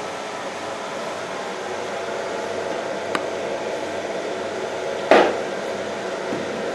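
Steady whir of a laser marking machine's cooling fans running. There is a sharp click about three seconds in and a louder knock about five seconds in.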